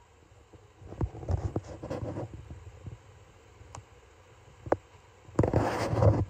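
Soft rustling with a few sharp clicks, then a louder rustle lasting about a second near the end.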